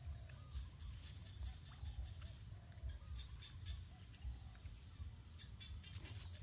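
Puppies whimpering in short, rising-and-falling squeaks, about two a second, over a low rumble and scattered clicks.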